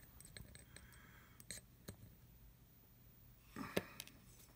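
Faint, scattered clicks of tiny metal machine screws shifting against a glass jar, with one louder click near the end.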